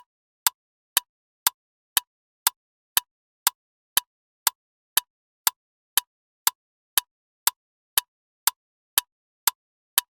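Loud ticking clock: sharp ticks at an even two per second, each with a brief ring and nothing heard between them.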